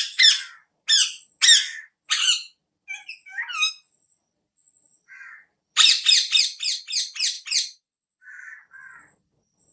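Pet parrot squawking. It opens with a run of harsh, high calls about two a second and a few softer chirps, then a fast burst of about eight squawks just past the middle, and ends with two softer calls.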